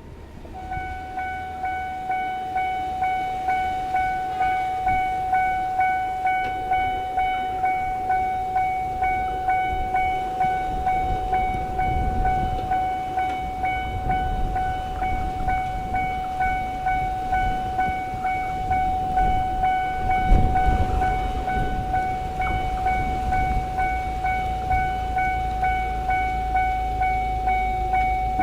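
Japanese level crossing's electronic warning bell ringing in regular strokes, about one and a half a second, on a single tone: the lower second tone has dropped out. Beneath it a Jomo Electric Railway 700-series electric train passes over the crossing, its rumble and wheel clatter loudest about twelve and twenty seconds in.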